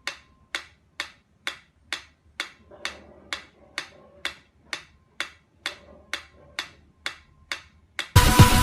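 A steady ticking: single sharp clicks about twice a second, evenly spaced like a clock. Loud music with a beat comes in suddenly near the end.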